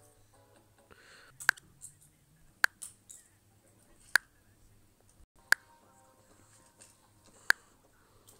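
Five sharp clicks, one every one to two seconds, over a faint low hum.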